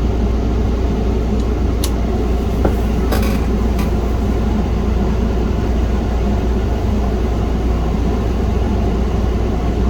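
Steady low hum and rumble, with a few faint clicks.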